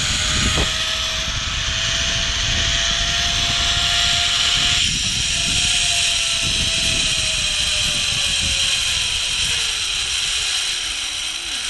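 Zip line trolley pulleys running along a steel cable give a steady whine that rises slowly in pitch for about five seconds. The whine then falls as the trolley slows near the end, over a loud rush of wind on the microphone.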